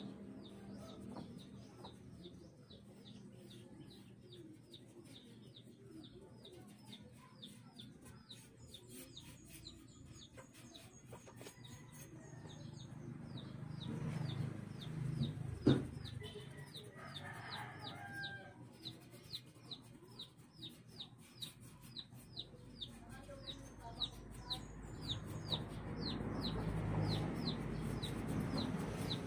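Chick peeping over and over: short, high, falling peeps at about two to three a second. A lower clucking call breaks in around the middle, and one sharp knock comes about halfway through.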